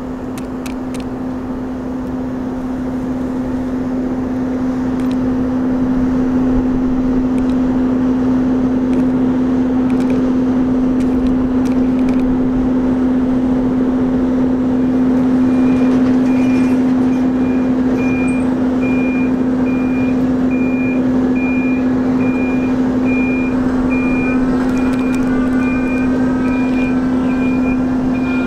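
Diesel railcar mover running steadily as it shoves a set of subway cars, with a strong constant hum, growing louder over the first few seconds. About halfway through its backup alarm starts beeping about once a second, and thin squeals that rise and fall come in near the end.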